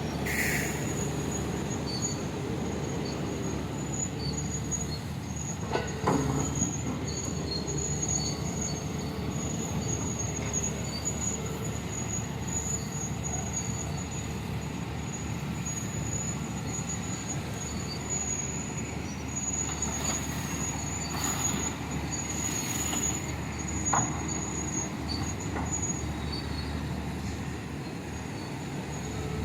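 Heavy diesel mining machinery running steadily, an excavator loading a dump truck, with a low engine drone and a constant high thin whine over it. A few short clunks come about six seconds in and again near the end.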